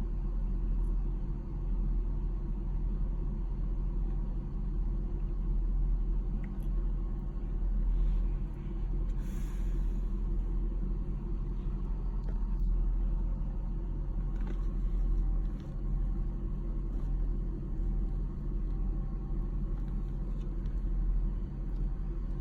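Steady low rumble of a stopped car's idling engine, heard from inside the cabin.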